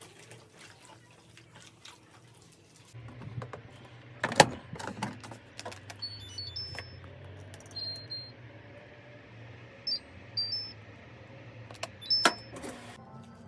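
A washing machine or dryer being handled: short high electronic beeps from its control panel several times, with sharp clicks and knocks, over a low steady hum that starts about three seconds in.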